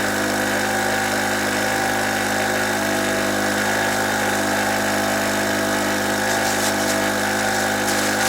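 Small GMC two-stroke portable generator, a Chinese clone of a Yamaha, running at a steady, even speed under the load of a 500-watt halogen work lamp. It runs smoothly on petrol mix from 2011–2012.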